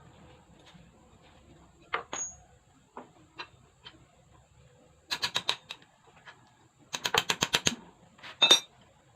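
Metal hand tools and engine parts clicking and clinking as the engine is worked on: a few single clicks, then two quick runs of rapid clicks, and a ringing metallic clink near the end.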